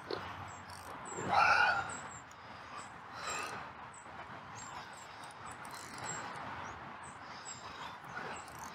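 Outdoor ambience with faint, high chirps repeating throughout, and a louder animal call about a second and a half in, with a weaker one near three seconds.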